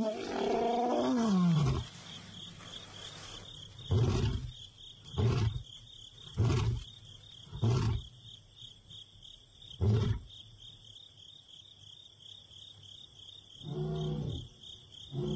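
A young male lion roaring: a long moaning call that falls in pitch, then a run of five short, loud grunts about a second or so apart, and a fainter call near the end. A steady insect trill runs underneath.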